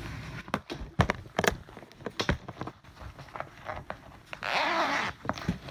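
BrailleNote Apex carrying case being handled and flipped down: several sharp clicks and knocks, then a rasping rustle lasting most of a second near the end.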